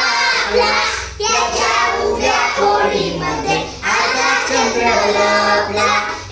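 A group of young children singing a Marathi poem together in unison, in phrases with short breaks between them.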